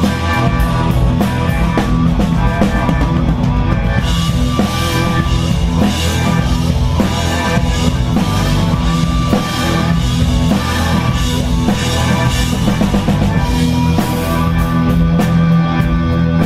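Live blues-rock band playing an instrumental passage, with a drum kit driving a steady beat under sustained guitar and keyboard tones.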